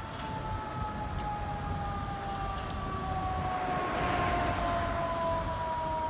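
Fire engine siren wailing: two tones sounding together whose pitch falls slowly and steadily, over the hiss of passing traffic.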